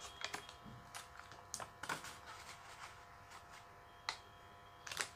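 Faint, scattered clicks and crackles of a clear plastic blister tray being handled and opened, the sharpest about four and five seconds in, over a faint steady hum.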